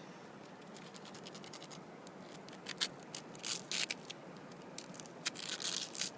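A stone scratching on rock as figures are scraped onto it, in short irregular strokes that are faint at first and louder and quicker from about three seconds in.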